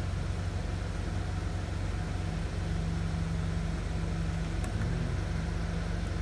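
Car engine idling steadily, with a brief click about four and a half seconds in.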